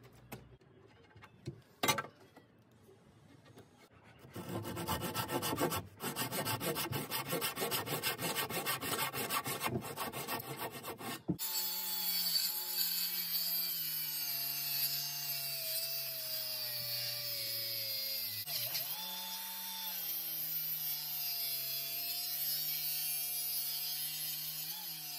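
Rapid scratching on wood for several seconds, then a DeWalt cordless circular saw starts and cuts through a timber beam, its motor whine steady with a brief dip in pitch about two-thirds of the way in as the blade takes load.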